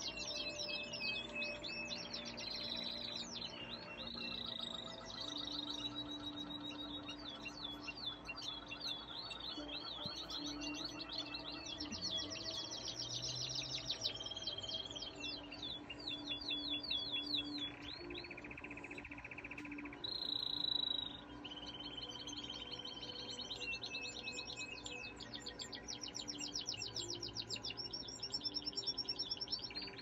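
Canary singing nonstop: fast trills and repeated chirping phrases, with a buzzy rolled phrase about two-thirds of the way through. Quiet music plays underneath.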